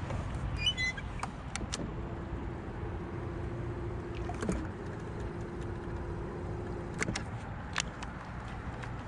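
Fishing reel being cranked on a lure retrieve: a steady whir from about two seconds in, broken briefly in the middle and stopping about two seconds before the end, with a few sharp clicks. A steady low rumble runs underneath.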